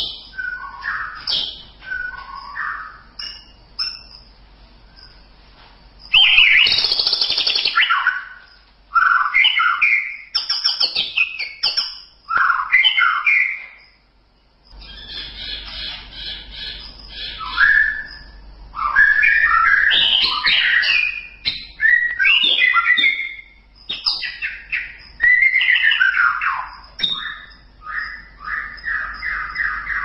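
White-rumped shama (murai batu) singing a long string of varied, fast whistled and chattering phrases broken by short pauses. A harsh rasping note comes about seven seconds in, and a rapid even trill near the end.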